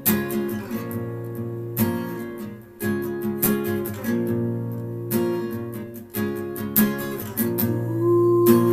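Acoustic guitar strummed, a chord about every second, in an instrumental break of a song; near the end a steady held note joins in.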